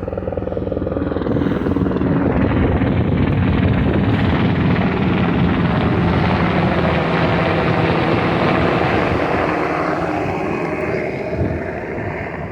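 An aircraft, most like a low-flying helicopter, passing over: its engine drone grows louder over the first few seconds, holds, then fades away near the end.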